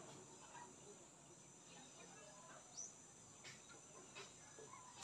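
Near silence: faint outdoor background with a steady high-pitched insect drone and a faint short chirp a little before the three-second mark.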